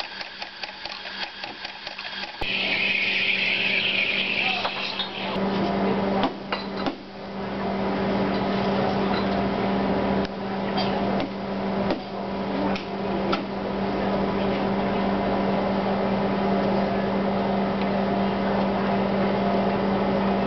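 Espresso bar at work: fast ticking at first, then a high hiss for a couple of seconds, then a steady machine hum to the end, with several sharp knocks in between.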